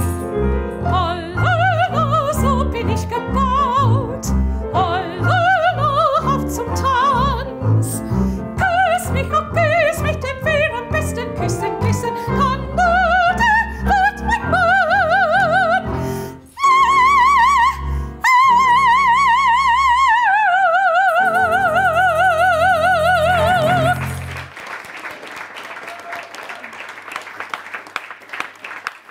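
Operatic soprano singing a tango-cabaret song with wide vibrato over double bass and piano, building to long held high notes with a final sustained note that falls in pitch slightly and ends about 24 seconds in. Audience applause follows.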